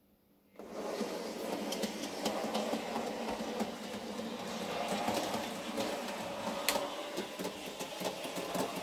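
N-scale model train running on the layout: a small electric motor's steady whirring with many irregular clicks of wheels over the track, starting suddenly under a second in.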